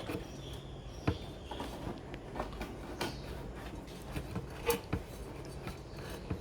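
Scattered light clicks and knocks of handling inside an air conditioner's casing as the fan motor's wire is pulled through, with a few sharper taps about a second in, three seconds in and near five seconds.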